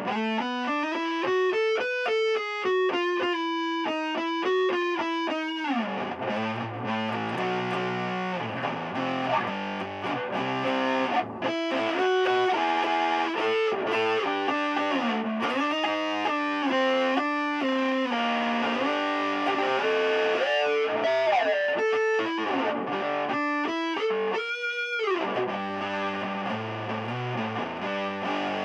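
Electric guitar played through a Keeley Compressor Mini, an Electro-Harmonix Nano Big Muff Pi fuzz and a Soul Food overdrive, all switched on: a sliding single-note lead line for the first few seconds, then lower, thicker fuzzed notes and chords, with a high bent note near the end.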